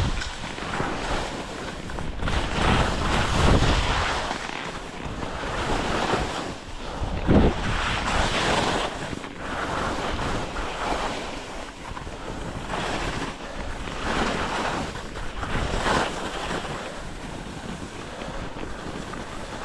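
Skis hissing and scraping over soft, tracked snow through a series of turns, swelling and fading every second or two, with wind rumbling on the microphone. A brief thump about seven seconds in.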